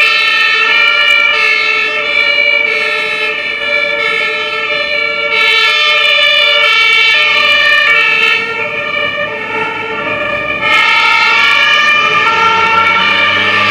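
German fire engines' two-tone sirens (Martinshorn) sounding, stepping back and forth between a high and a low note about every half second, two sirens overlapping out of step. A vehicle engine rumble joins near the end.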